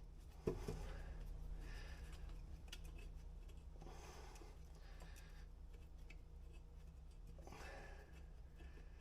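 A single sharp knock about half a second in, then faint scraping and ticking from hand tools working on a truck engine, over a low steady hum.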